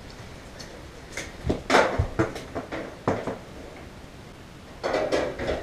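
Knocks and clatter of a Mr. Heater ventless blue-flame gas heater's cabinet being handled and hung on its wall mount: a few separate knocks, then a busier clatter near the end.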